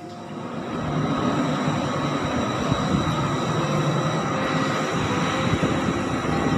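Wind buffeting the microphone outdoors: a rough, fluttering noise strongest in the low end that comes in about half a second in and holds steady.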